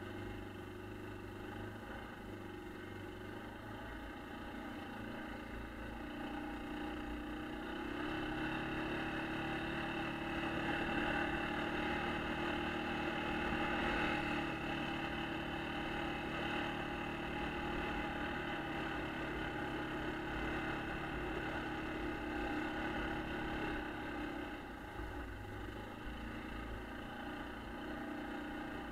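A 1996 Yamaha Kodiak 400 ATV's single-cylinder four-stroke engine running steadily as it is ridden. It gets louder about eight seconds in and eases off again near the end.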